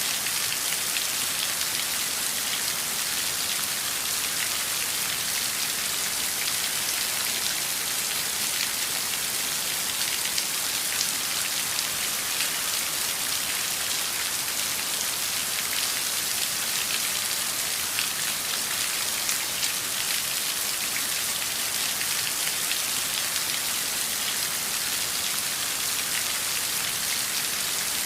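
Heavy downpour of rain: a steady, dense hiss of falling water with many small individual drop hits and no let-up.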